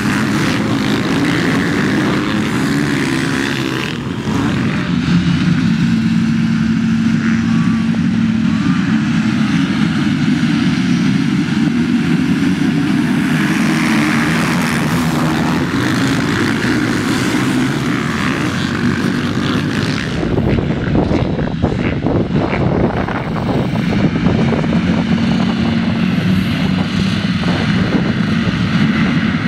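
Many motocross bike engines running hard together as a pack races off the start. Near the end, a line of bikes waits running at the start gate.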